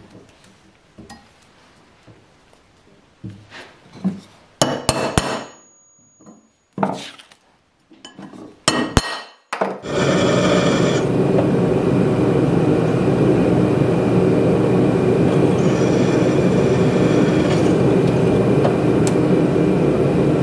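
Sharp metallic knocks and clinks as steel plate and parts are handled. About halfway through, a Delta benchtop drill press starts and runs steadily, drilling a hole through steel plate.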